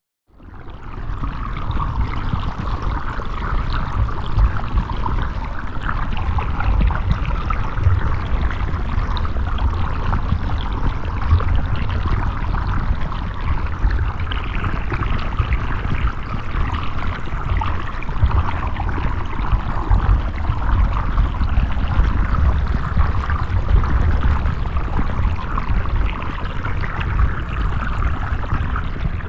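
Underwater diving ambience: a steady deep rumble with a rushing, bubbling water hiss. It fades in at the start and fades out at the end.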